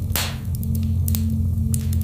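Wood fire crackling in a fireplace: scattered sharp snaps and pops, a louder hissing pop just after the start, over a low steady hum with a soft held drone.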